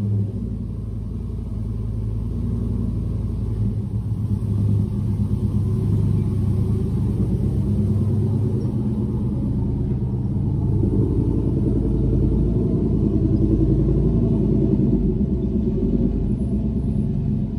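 Chevrolet Tahoe's 6.0 L LQ4 V8 with a BTR Stage 2 cam, long-tube headers and a 3-inch stainless exhaust with a Borla XR1 muffler, rumbling steadily at low revs while the truck is driven slowly out of the garage, a little louder from about four seconds in.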